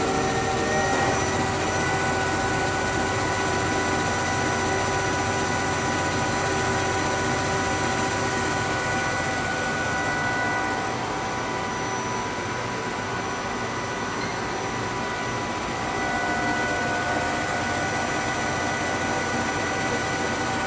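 Spindle of a 1993 Femco Durga 25E CNC turning center running with its chuck spinning: a steady whir with several high, steady whining tones. It drops a little for a few seconds past the middle, the higher whine fading out, then comes back up.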